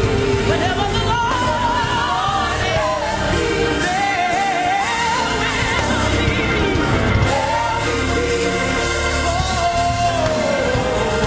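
Gospel song: a solo voice sings long, wavering runs with vibrato over a steady band accompaniment.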